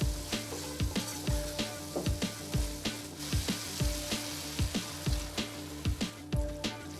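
Food frying and sizzling in a pan as it is stirred, under background music with a steady beat.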